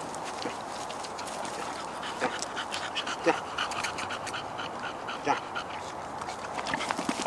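Several bully-type dogs panting, with a few short cries, the loudest about three and five seconds in.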